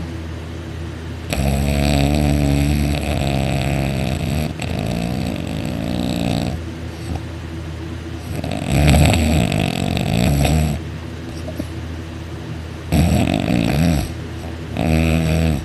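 A man snoring loudly in deep sleep, lying on his back with his mouth open, his soft palate vibrating. Four loud snores, the first a long one of about five seconds, with quieter breathing between.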